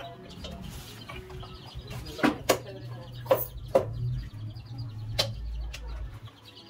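Butcher's cleaver chopping goat meat on a heavy wooden chopping block: about five sharp knocks at irregular intervals, two close together, then two more, then a last one.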